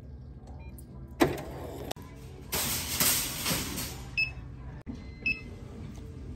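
Checkout counter sounds: a knock about a second in, a whirring noise lasting about a second and a half in the middle, then two short electronic beeps from the register.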